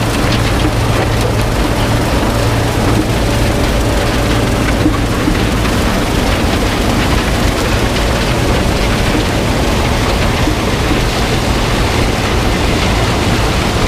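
A combine running while harvesting corn: a steady, loud, dense rush of machinery noise under a low engine hum that eases a little about five seconds in.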